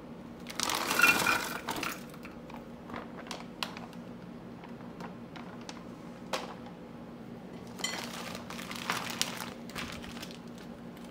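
A plastic bag of frozen raw shrimp crinkles loudest about a second in as it is opened and tipped out. Frozen shrimp clack as they drop into the stoneware crock of a slow cooker, in scattered sharp clicks, and the bag crinkles again near the end.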